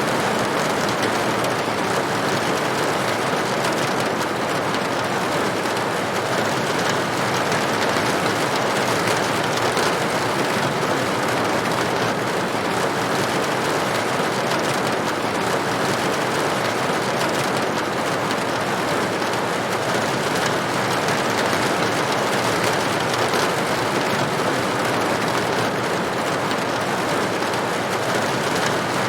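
Heavy rain beating on a window: a dense, steady hiss of drops that keeps up without a break.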